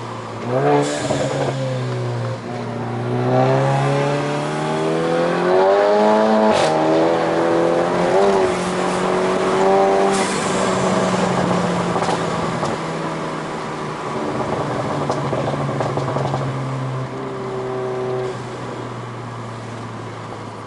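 Tuned (stage 2+) Seat Ibiza Cupra 6J 1.4 TSI four-cylinder engine running hard under load, its pitch climbing and dropping several times as the DSG gearbox shifts. Sharp exhaust pops and crackles come about a second in, around six seconds and around ten seconds in.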